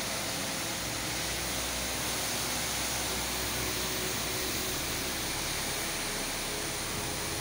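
Pressure washer jet spraying water onto paving: a steady, even hiss.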